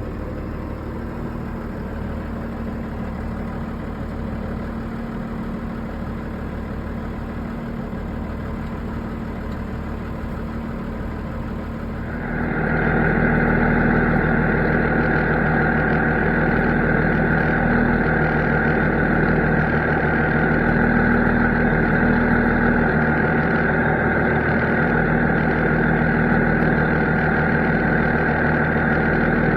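Farm diesel engine running steadily. About twelve seconds in it steps up sharply louder and brighter, with a strong steady whine added, and holds there.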